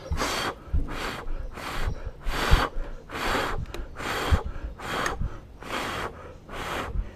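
A man's rapid, heavy breaths right at the microphone, short puffs about twice a second with low thuds of breath hitting the mic.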